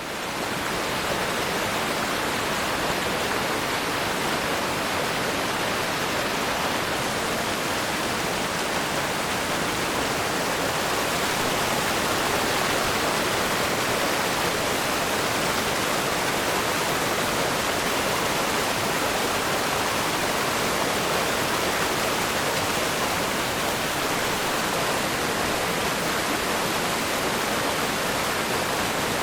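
River rapids rushing over rocks: a steady, dense roar of white water, fading in over the first second.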